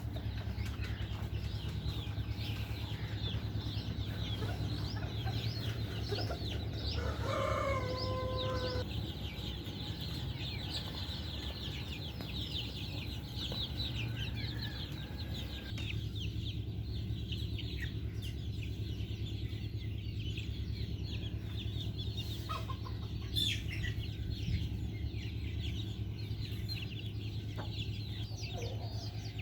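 A flock of hens clucking and calling, busiest in the first half, with one longer drawn-out call about seven seconds in. A steady low hum runs underneath.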